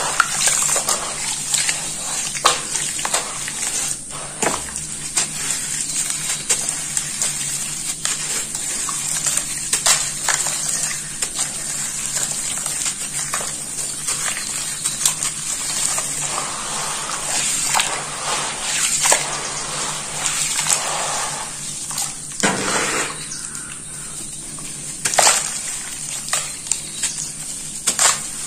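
Hands crushing and crumbling wet sand-cement and red dirt in a basin of muddy water. Gritty crunching and squelching come in irregular bursts, with water sloshing and grit splashing down.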